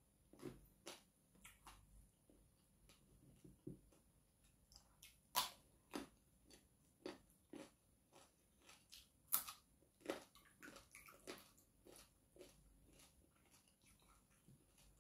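Close-up eating sounds: chewing and crunching crisp deep-fried mackerel and raw side vegetables, eaten by hand. An uneven string of sharp crunches and clicks, the two loudest about five and nine seconds in.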